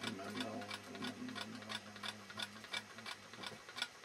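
A low held hum of a monk's chanting voice, fading out near the end, over fast even clicking at about three to four clicks a second.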